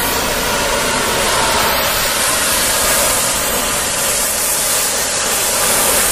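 Gas torch flame hissing steadily while it plays on the end of a steel bolt, heating it red hot.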